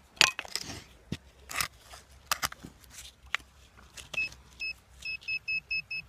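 Sharp knocks and scrapes of digging in soil and stones. About four seconds in, a metal-detecting pinpointer starts beeping: two single high beeps, then a rapid run of about five a second, the signal that it has found metal in the hole.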